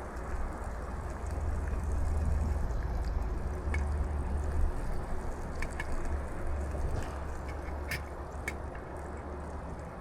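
Strong wind buffeting the microphone: a steady low rumble that swells and eases, with a few short clicks, the loudest about eight seconds in.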